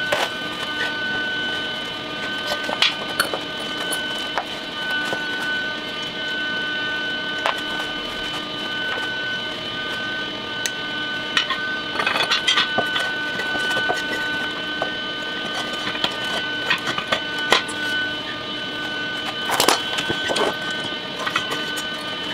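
Scattered metal clanks and knocks as a steel wheel rim is handled and fitted onto a power wheelchair's drive hub, over a steady mechanical whine that holds its pitch throughout.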